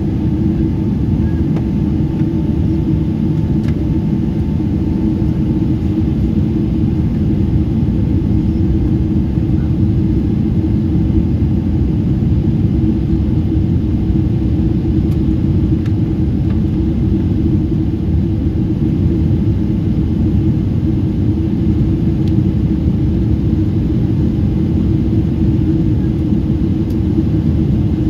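Cabin noise of a Boeing 777-300 climbing out after takeoff: the twin turbofan engines at climb power and the airflow over the fuselage make a steady low rumble with a constant hum.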